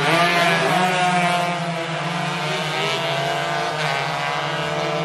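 Racing motorcycles' engines, several at once, revving hard with their pitch rising and falling as they accelerate and shift.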